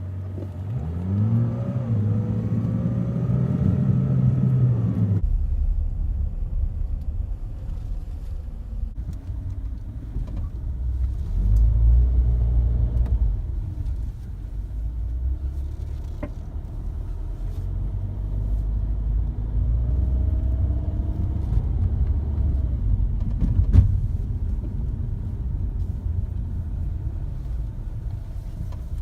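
MINI Cooper R56 driving: the engine note climbs in pitch for the first few seconds, then gives way suddenly to a steady low rumble that swells louder about twelve seconds in. A faint gliding tone rises and falls around twenty seconds, and a single sharp click sounds near the end.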